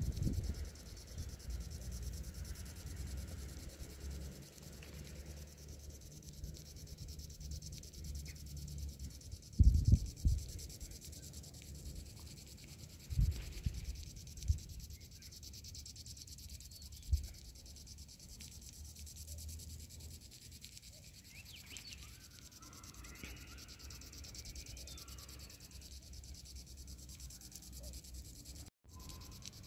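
Wind rumbling on a phone's microphone, with a few stronger gusts about ten, thirteen and seventeen seconds in, and a brief dropout near the end.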